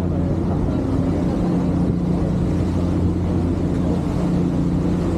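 Passenger ferry's engines running steadily: an even, low drone with a steady hum.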